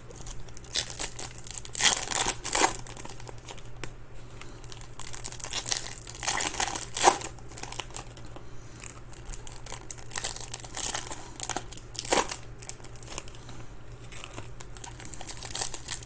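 Foil trading-card pack wrappers being torn open and crinkled by hand, with cards handled, in irregular bursts of crackling.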